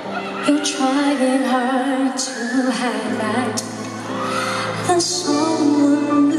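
A woman singing a slow pop ballad live into a microphone, with band accompaniment, heard through an arena's sound system.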